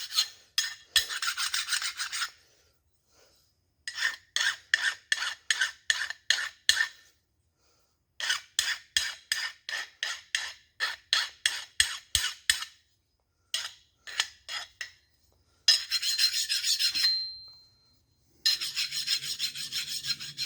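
Hand file rasping across the edge of a steel 350 Chevrolet connecting rod, taking off a burr of metal: runs of quick strokes, about three a second, with short pauses between runs.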